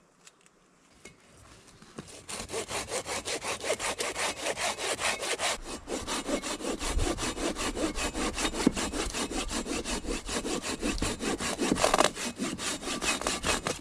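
Silky BigBoy folding pruning saw cutting through a deadfall log. It starts about two seconds in with quick, even back-and-forth strokes.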